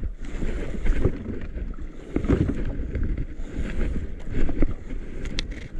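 Wind buffeting the microphone at sea, with waves and water moving around a small outrigger boat. The noise surges and eases unevenly about once a second.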